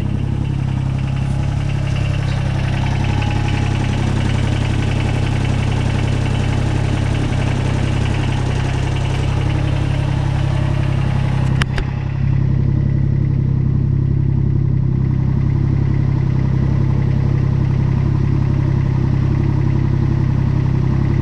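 Kubota BX22 compact tractor's three-cylinder diesel engine running steadily at idle. A single sharp click comes a little over halfway through, after which the high-pitched part of the sound drops away and the low hum carries on.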